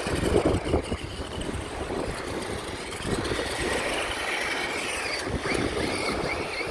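Monster Jam Megalodon RC monster truck driving: a rough rumble of the wheels over the ground, with the small electric motor's faint whine wavering in pitch in the second half.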